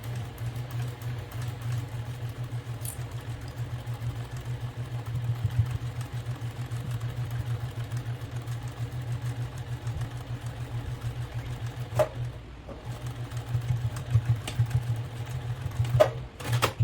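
Electric sewing machine stitching a seam at a steady speed, a fast even rattle of the needle. It stops briefly about twelve seconds in with a click, runs again, then stops near the end with another click.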